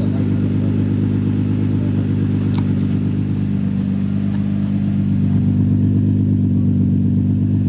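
Car engine idling steadily through an exhaust with a newly installed ISR Y-pipe, with a single light click a little over two seconds in.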